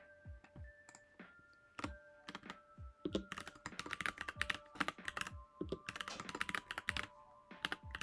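Typing on a computer keyboard: a few scattered keystrokes, then a quick, dense run of typing from about three seconds in that eases off near the end.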